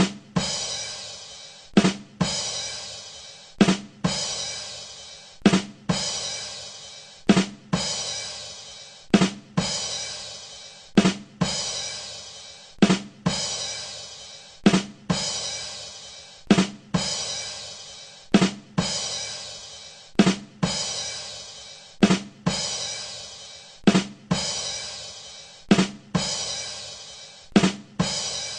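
Rimshot 'ba dum tss' drum sting on a drum kit: two quick drum hits and a cymbal ringing out. It repeats over and over, about once every two seconds.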